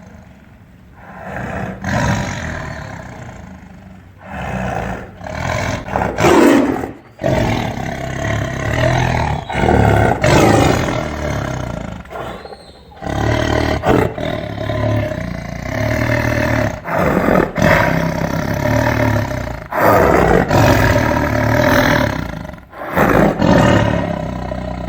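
Tiger roaring again and again: a long series of loud, deep roars with short pauses between them.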